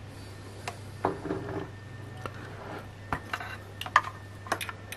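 Multimeter test probes tapping and clicking against metal socket pins and the amplifier chassis: scattered small metallic clicks, a few about a second in and more in the second half, over a low steady hum.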